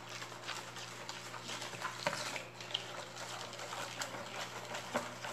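Plastic spoon stirring and scraping in a plastic basin as caustic soda flakes dissolve in coconut milk: an irregular run of scrapes and small clicks, with sharper knocks about two, four and five seconds in.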